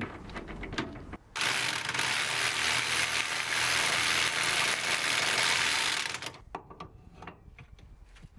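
Ratchet tightening down the new control-arm ball joint on a car's front suspension: a few clicks, then about five seconds of fast continuous ratcheting, then slower single clicks near the end.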